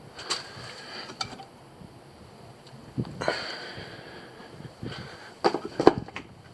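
Scattered knocks and clatter of parts being handled, a few separate ones early and around the middle and a louder cluster near the end; the engine is not running.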